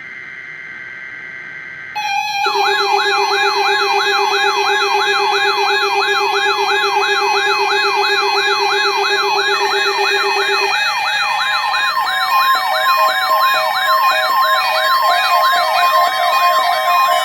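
Weather alert radios going off together: a short burst of paired digital alert-code tones from the NOAA Weather Radio broadcast, then several receivers' alarms at once, a warbling siren sweeping up and down about three times a second over a low steady buzz, with more beeping tones joining about two-thirds of the way in. The alarms are set off by the NOAA Weather Radio required weekly test.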